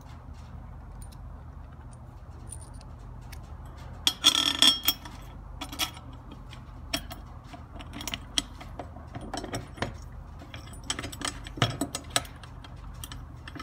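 Metal strut and small fastener hardware clinking and rattling as the strut is fitted over the bottom wall anchor and a flanging washer and nut are put on by hand. A louder metallic rattle comes about four seconds in, then scattered clicks.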